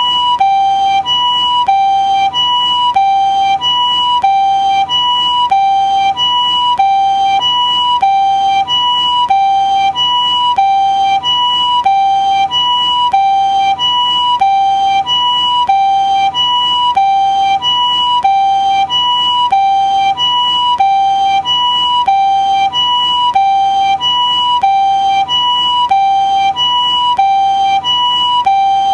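Japanese ambulance siren giving its two-tone "pee-poh" call: a higher and a lower tone alternate evenly, about one high-low pair a second, at a steady pitch and level.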